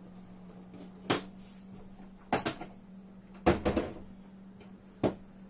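Scattered metallic clinks and knocks of hand tools being handled while a wrench of the right size is picked out: a single knock, then a quick double, a short cluster, and one last knock.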